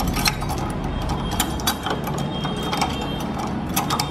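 A large, heavy metal padlock being forced shut: irregular metallic clicks and rattles from the shackle and key, over a steady low hum.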